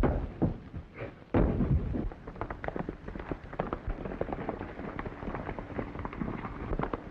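A few heavy thumps over the first second or so, with a sudden loud hit about a second in, then a horse galloping: rapid, irregular hoofbeats from about two seconds in.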